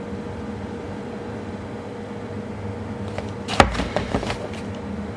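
A cardboard product box being handled: a sharp tap about three and a half seconds in, then a few softer clicks and knocks, over a steady low background hum.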